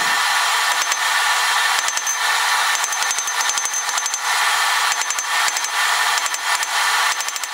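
Ball-pein hammer striking a red-hot mild steel bar on an anvil in quick runs of blows, with a high metallic ring after several runs, over a steady hiss. The blows are rounding the bar's end into a ball.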